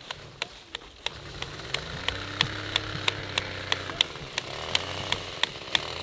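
A vehicle engine running steadily, its pitch rising about two seconds in and then holding, with sharp regular ticks about three times a second over it.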